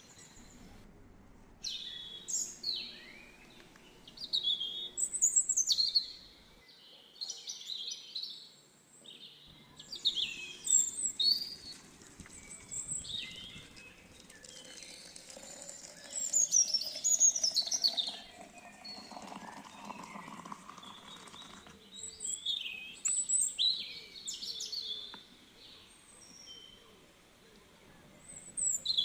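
Birds chirping and singing in short, high, quick phrases, one after another.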